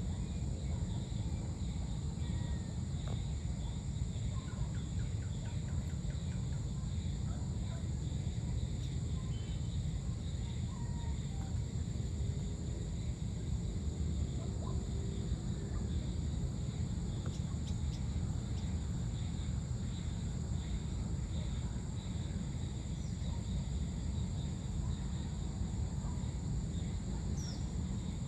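Ambient field sound: a steady high insect drone over a constant low rumble, with scattered faint bird chirps.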